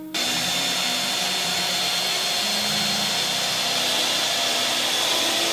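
A power tool switching on abruptly and running steadily at full speed, a loud hiss with a steady high whine.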